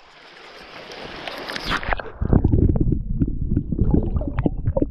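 Creek water rushing, growing louder as the microphone nears the surface. About two seconds in the sound turns muffled and low as the microphone goes under water, with a rumble full of quick clicks and pops.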